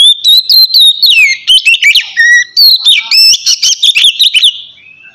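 Oriental magpie-robin singing loud, clear whistled phrases: quick rising and falling notes mixed with sharp chips. The loud song breaks off near the end, leaving softer twittering.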